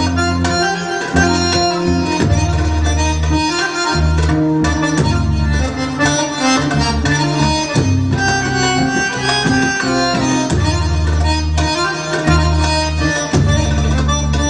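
Egyptian baladi music led by an accordion playing sustained, ornamented melody lines over a steady bass, with hand-drum beats keeping the rhythm.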